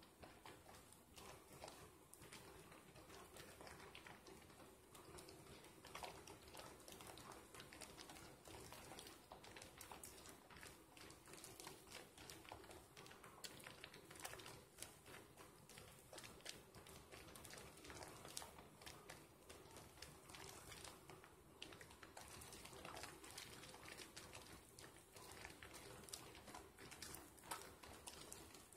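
Wet, soapy hands rubbing a sliver of bar soap into thick lather: faint, continuous squishing made of many small, irregular wet clicks.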